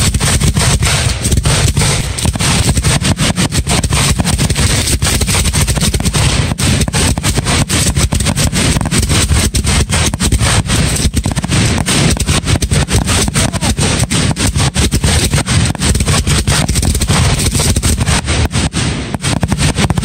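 Fireworks barrage: rapid bangs and crackles running together almost without a break, loud throughout.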